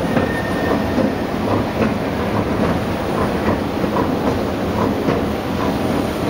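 Passenger train running slowly through a station, heard from on board: a steady rumble with the wheels clicking over the rail joints a few times a second.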